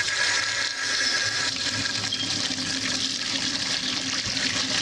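Cold water running from a kitchen tap in a steady stream onto cooked elbow macaroni, rinsing the drained noodles to stop them cooking.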